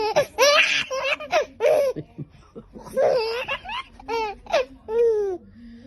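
Baby laughing in runs of short, high-pitched bursts, with a brief pause about two seconds in before another run of laughs.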